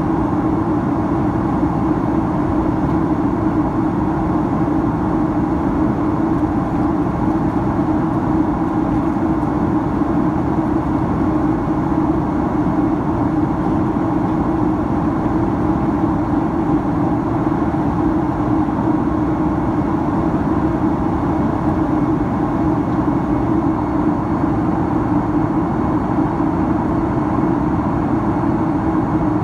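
Steady in-flight cabin noise inside a Boeing 767-300ER: the engines and the air rushing past the fuselage make an unbroken hum with a strong low drone.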